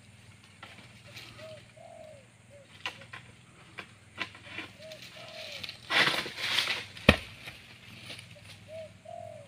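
A cut oil palm fruit bunch falls through the fronds with a rustle and hits the ground with one heavy thud about seven seconds in. Doves coo in short repeated calls throughout.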